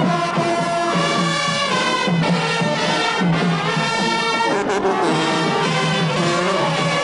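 High school marching band playing, its brass carrying held notes that change every half second or so.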